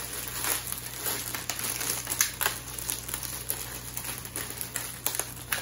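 Plastic snack-bag wrapper crinkling as hands pull it open, a busy run of short crackles.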